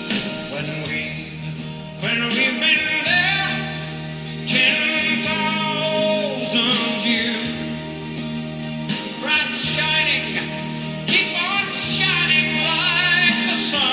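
Music: a slow song with a singing voice over instrumental accompaniment.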